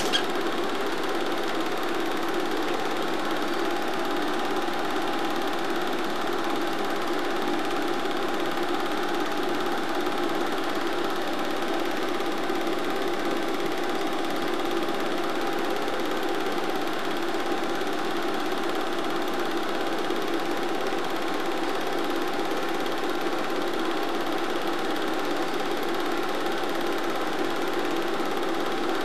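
Steady mechanical whirring and light clatter of a film projector running, unchanged in pitch or level throughout, as heard when silent cine film is transferred by filming or recording the projection.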